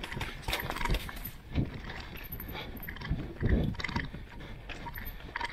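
Mountain bike riding a rough downhill trail: irregular knocks and rattles from the tyres and bike over a low rumble, with a few heavier thumps.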